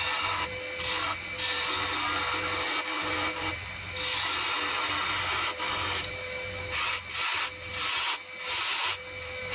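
A hand-held turning tool cuts spinning wood on a Record DML320 lathe, making a scraping hiss in passes of a second or two with brief breaks. The strokes become shorter and quicker near the end. Under the cutting runs the lathe's steady hum.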